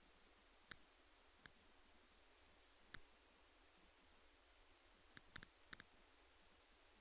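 A few short, sharp clicks over near silence: three single clicks a second or so apart, then a quick run of four or five near the end.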